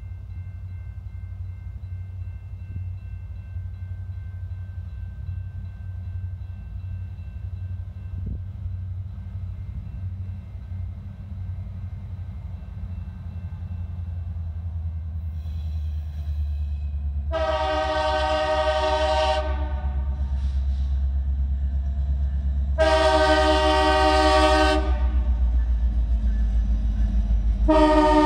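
Approaching BNSF diesel freight locomotives sounding their multi-tone air horn: two long blasts about five seconds apart, with a third starting near the end, over the train's low rumble, which grows steadily louder as the train draws near.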